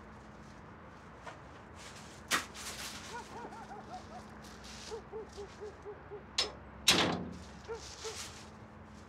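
A plastic carrier bag rustling with handling and light steps. A few sharp clicks, and a heavier thump about seven seconds in that dies away briefly. Faint, short squeaks repeat in quick rows under a low steady hum.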